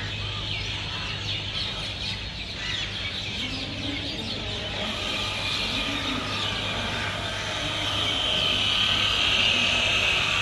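Many birds chirping together, a dense chorus of short calls that grows fuller near the end, over a steady low hum.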